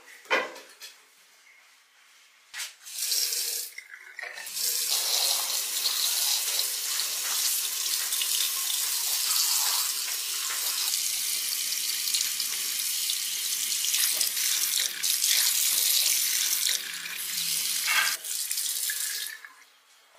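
Water running from a tap into a sink while hands are washed under it: a short spurt a few seconds in, then a steady flow that stops near the end.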